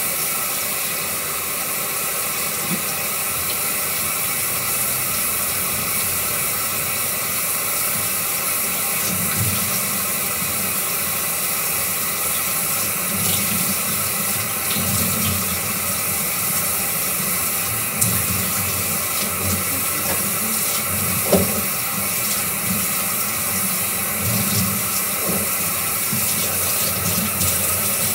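Kitchen tap running steadily into the sink while hands are washed under it, with a couple of light knocks partway through.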